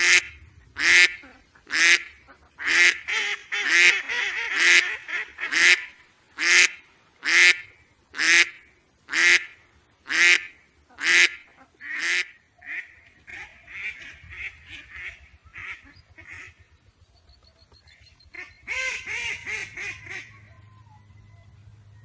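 Duck quacking: a series of loud quacks about one a second, then softer, quieter quacks, and a short burst of rapid quacking near the end.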